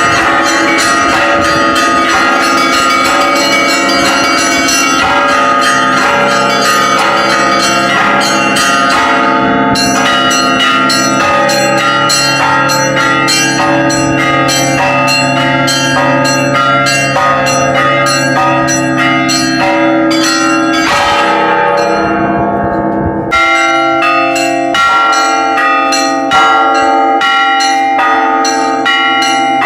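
Russian Orthodox church bells rung as a peal from the bell tower: rapid, dense strikes of small high bells over steady strokes of larger, deeper bells. About 23 seconds in, the deepest bell stops sounding and the striking pattern changes.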